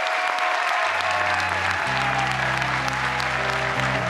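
Audience applauding a winner being announced. From about a second in, music with steady low bass notes plays under the clapping.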